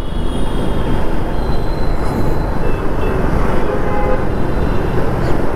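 KTM Duke 390 single-cylinder motorcycle riding in slow city traffic: steady engine and road noise mixed with the surrounding traffic. A few faint high tones come and go.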